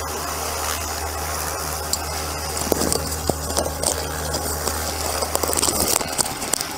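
Helicopter engine and rotor running steadily, heard from inside the cabin with the door open. From about three seconds in, short knocks and rattles of someone climbing aboard, more frequent near the end.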